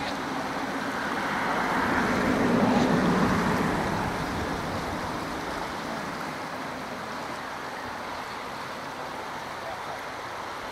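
Steady rush of a fast-flowing river, with a louder swell of noise that builds and peaks about three seconds in, then fades.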